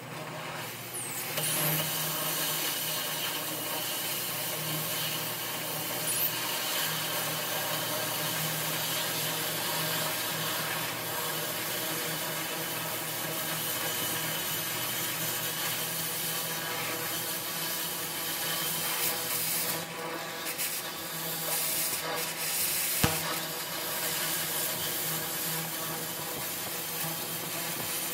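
Oxy-fuel cutting torch hissing steadily as it burns a hole through a thick steel boom beam. The hiss dips briefly near the start and about 20 seconds in, and there is one sharp click about five seconds before the end.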